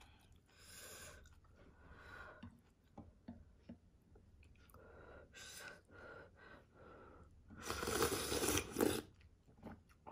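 Eating ramyeon noodles: soft chewing and small clicks of utensils, then a loud slurp of noodles lasting about a second, starting near the end.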